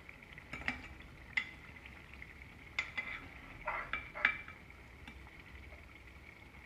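Metal ladle clinking and scraping against the side of a metal cooking pot as a simmering eggplant curry is stirred: a handful of short clinks, the loudest about four seconds in. A faint steady high tone runs underneath.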